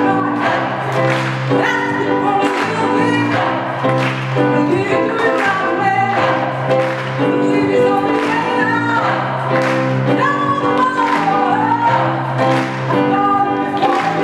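Gospel choir singing over a steady beat.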